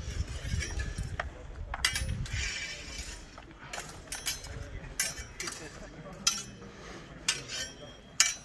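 Steel longsword blades clashing in free sparring: about eight sharp metallic clinks, irregularly spaced, as the blades strike and bind.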